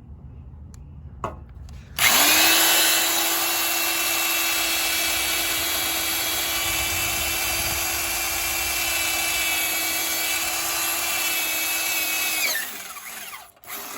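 Power drill spinning up and boring out a factory spot weld in the car's steel floor pan, running at a steady pitch for about ten seconds before winding down.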